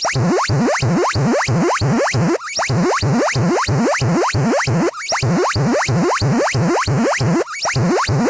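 Emergency-alert-style electronic alarm: rapid rising pitch sweeps, about four a second, repeating in runs of roughly two and a half seconds with brief breaks between them.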